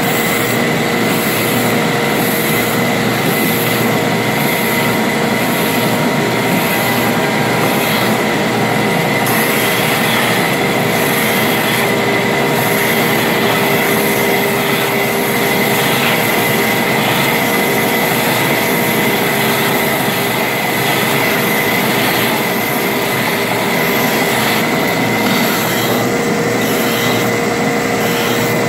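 Stroke sander running: the long abrasive belt runs steadily over its pulleys while a hand-held pressure block pushes it down onto a wooden harp panel. A steady high whine sits over the sanding noise.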